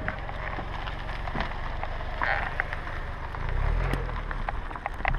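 Car rolling slowly on a gravel road close by: a steady low rumble with scattered crunching clicks, swelling briefly a little before four seconds in.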